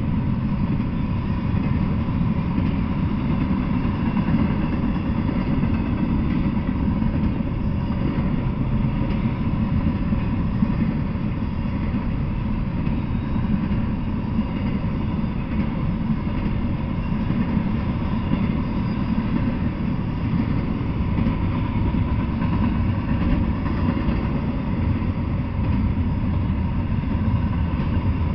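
Double-stack intermodal container freight train rolling past: a steady rumble of wheels on the rails.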